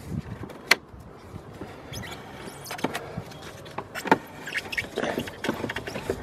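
Hands working a speedometer cable and hoses through a car's engine bay: rubbing and rustling, with several sharp clicks and knocks. The loudest click comes about three-quarters of a second in, and others come near three and four seconds in.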